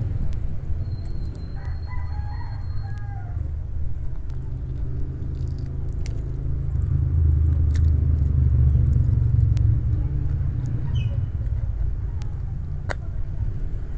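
A steady low rumble, swelling for a few seconds about seven seconds in, like a passing vehicle. A rooster crows once in the background near the start, and there are a few light clicks.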